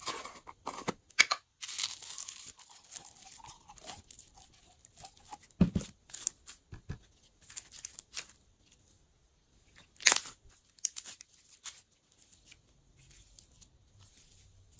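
Hand-working sounds of slime making: irregular crisp crackles, tearing and scraping noises with sharp clicks, two louder snaps near the middle, quieter toward the end.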